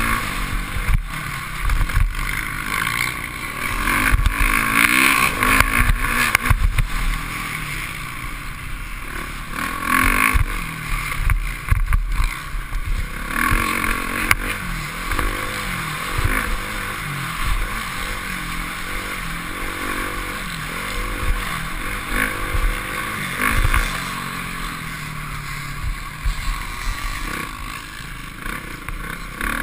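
Motocross bike engine revving up and down as the rider races, heard from the rider's helmet camera, its pitch rising and falling again and again, with a low rumble and scattered sharp knocks.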